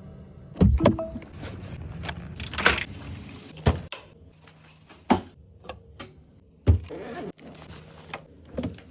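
Scattered clicks, knocks and rustling of things being handled, with a jangle of keys.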